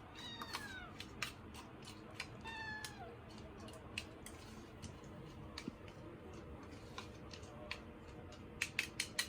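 Scottish Fold kitten meowing twice, each meow falling in pitch, over light clinks and clicks of dishes being washed, with a quick run of sharper clinks near the end.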